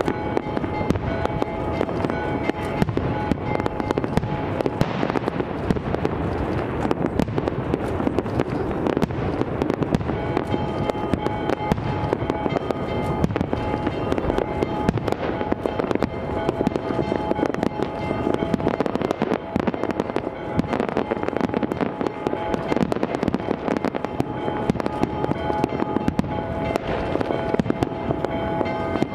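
Aerial fireworks display: a dense, unbroken run of bangs and crackles from shells bursting overhead.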